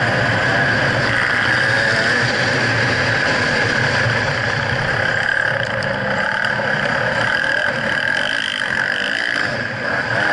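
2011 GasGas EC300 two-stroke dirt bike engine running while riding on a dirt track, its revs rising and falling, mixed with a steady rush of wind noise.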